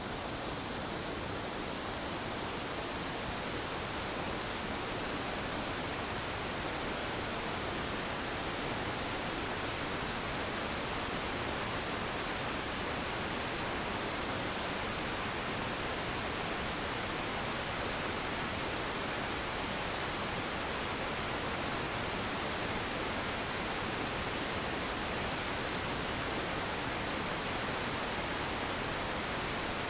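Waterfall: a steady, even rush of falling water, with no birdsong or other sound standing out.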